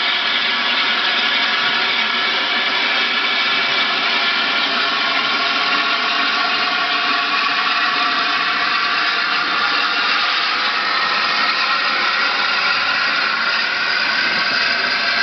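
Steam train hauled by A1 Pacific 60163 Tornado departing, a steady mechanical running noise with several tones that rise slightly in pitch near the end.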